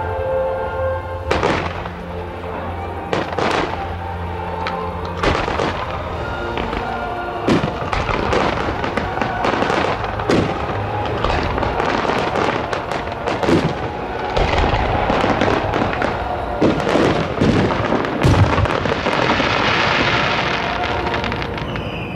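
Fireworks display: a rapid, continuous series of launches and aerial shell bursts, with a dense stretch of crackling about two-thirds of the way in, over music.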